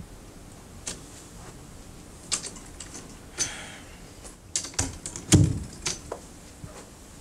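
Someone coming into a room through a door and walking in: a scatter of light clicks and knocks from the door and footsteps, with the heaviest knock a little over five seconds in.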